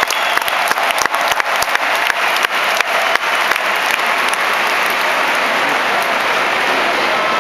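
Large arena crowd applauding, a dense patter of sharp individual claps that thins out after about three seconds into an even crowd noise.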